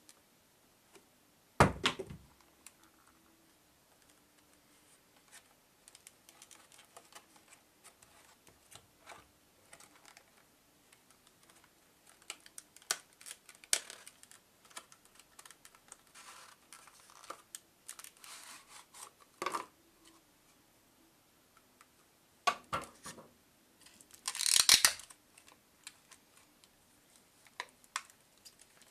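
Clear plastic packaging and a plastic bag crinkling and crackling as hands unwrap them, in scattered bursts. A sharp knock comes about two seconds in, and the loudest crinkling comes near the end.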